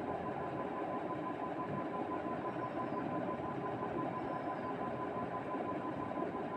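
Steady background hum with a thin, even high tone running through it, with no sneezes.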